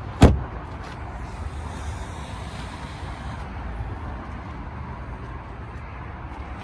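A car door shutting with one sharp thump just after the start, followed by a steady low background rumble.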